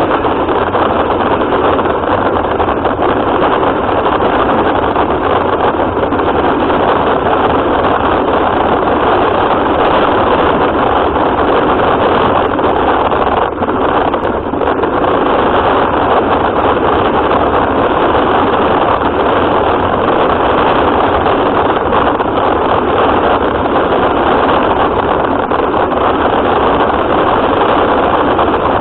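RC car running, heard from a camera mounted on the car: a loud, steady rushing noise of motor, drivetrain and tyres over the ground, dipping briefly about halfway through.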